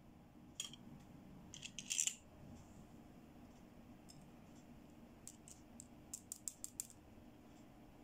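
Hard plastic toy bangles being handled, giving sharp little clicks and taps. There is a single click about half a second in, a quick cluster around two seconds that is the loudest, and later a run of clicks at about five a second.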